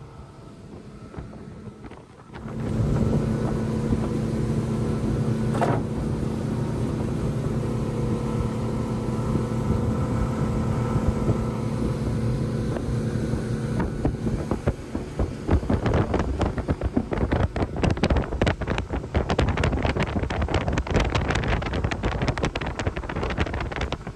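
Boat engine throttling up sharply about two seconds in, then running hard and steady. In the second half, rapid irregular knocks and crackles pile on over the engine.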